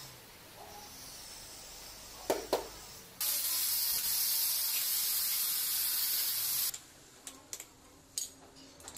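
Two knocks as a large ceramic floor tile is set down, then a loud steady hiss of about three and a half seconds that starts and stops abruptly, then light plastic clicks from tile-leveling clips and wedges being fitted between the tiles.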